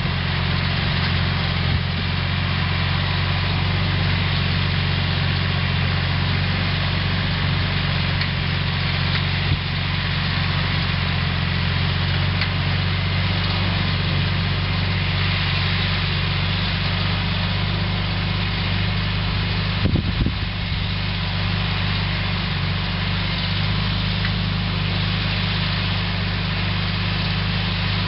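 Yanmar YM169 compact diesel tractor's engine running steadily while it pulls a digging implement through a potato row, with a brief knock or two about twenty seconds in.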